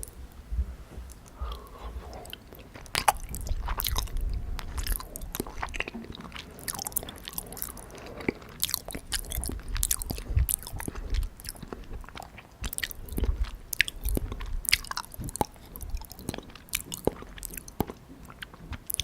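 Close-miked chewing of soft, syrup-soaked gulab jamun: many short, irregular mouth clicks and smacks.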